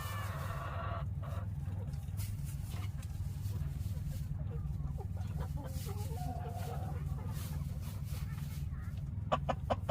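Chickens clucking and calling in short bursts over a steady low hum. A quick run of sharp clicks comes near the end.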